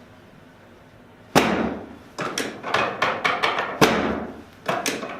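A quick run of sharp knocks, about four a second, starting about a second and a half in after a quiet moment, the first and one near the middle the loudest.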